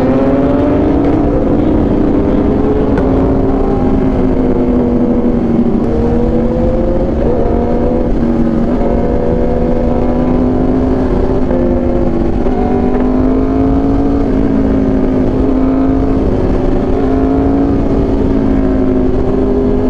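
Aprilia RSV4 1100 Factory V4 superbike engines with SC Project exhausts running at steady cruising revs with small rises and dips. Several engine notes overlap in a buzz, like bees, over a low wind rumble.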